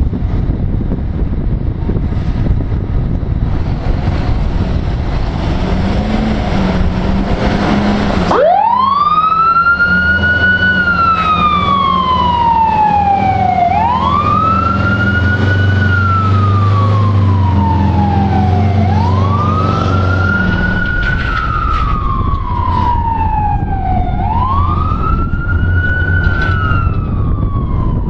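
Fire truck siren on a Sutphen mid-mount ladder truck running code. Wind buffets the microphone at first. About eight seconds in the siren starts, each cycle rising quickly and falling slowly, four cycles about five seconds apart, over the rumble of the truck's engine.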